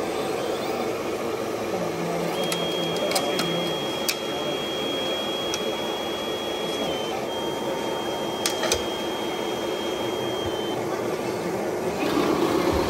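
Small electric motor and gearbox of a radio-controlled model whining steadily at a high pitch, starting about two seconds in, breaking briefly near the middle and stopping near the end, with a few light clicks, over a steady background hum.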